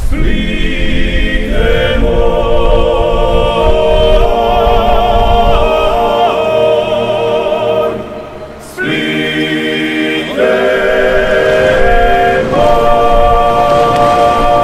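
Background music of voices singing together in harmony, held notes with vibrato. A phrase ends about eight seconds in and a new one begins about a second later.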